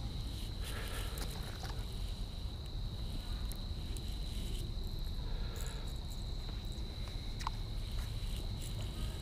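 Insects droning in one steady high tone, over a low rumble, with a few faint short clicks.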